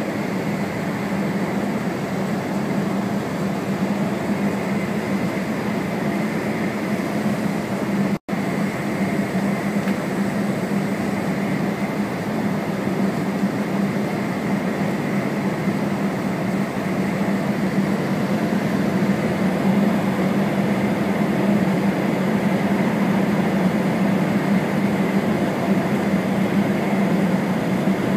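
Steady running noise inside the passenger cabin of an E4 series double-decker Shinkansen: a continuous rumble with a low hum. The sound cuts out for an instant about eight seconds in.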